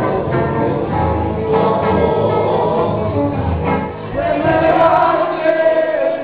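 Live acoustic music: guitars and an upright bass accompanying men singing together, the singing swelling louder after a brief dip about four seconds in.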